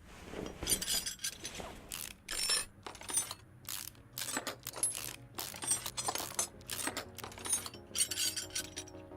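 A rapid run of sharp metallic clinks and clatters, about two or three a second, like small metal parts or tools being handled and set down on a hard surface; a few ring briefly near the end.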